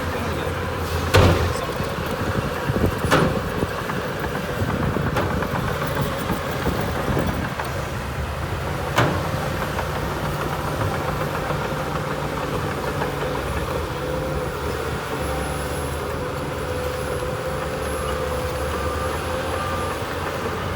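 Heavy diesel construction machinery engine running steadily, with a few sharp knocks, the loudest about a second in.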